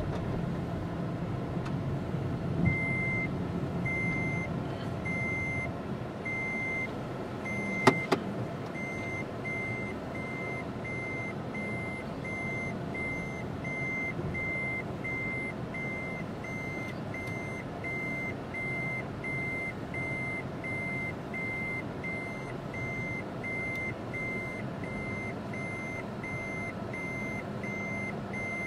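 Car engine and road noise heard from inside the cabin, with an electronic warning beep that starts a few seconds in at about one a second and quickens to about one and a half a second. A single sharp click about eight seconds in.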